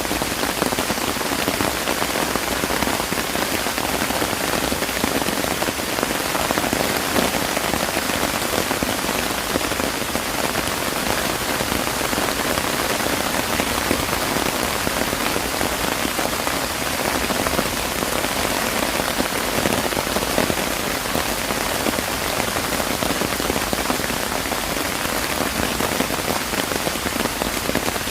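Steady rain falling, an even hiss of countless drops hitting the ground that holds level throughout.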